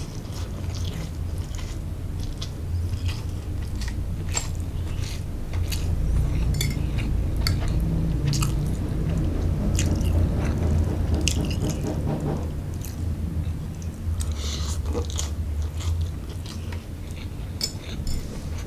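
Close-miked chewing of fried rice vermicelli, with many scattered small clicks through the chewing.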